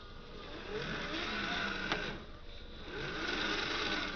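Electric motor and gearbox of a radio-controlled dump truck whining as it drives, rising and falling in pitch in two spurts of about a second each, with a sharp click between them.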